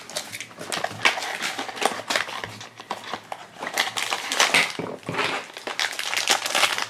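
A small cardboard blind box being opened by hand, then the foil bag from inside crinkling as it is handled: a run of irregular rustles and crackles.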